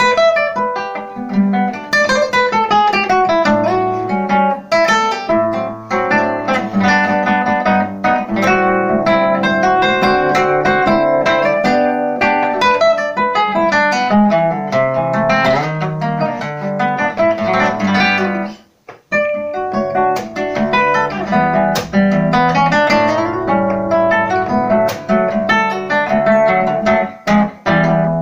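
Spanish nylon-string guitar, an Antigua Casa Núñez rebuilt with a balsa-and-carbon braced red cedar top, played fingerstyle: a Brazilian choro melody over bass notes, with a brief pause about nineteen seconds in.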